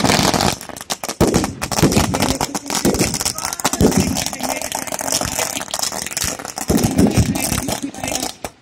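Firecrackers going off in a fast, uneven string of sharp cracks and bangs, set off to imitate gunfire and explosions in a mock battle, with a few heavier bangs among them.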